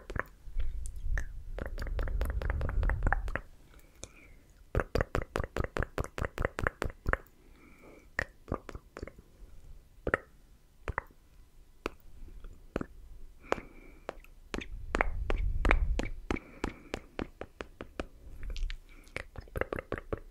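Close-miked ASMR mouth sounds: wet tongue and lip clicks and 'tk-tk' pops, in quick runs of several a second with sparser single clicks between. Two spells of low rumbling on the microphone come about a second in and again about fifteen seconds in.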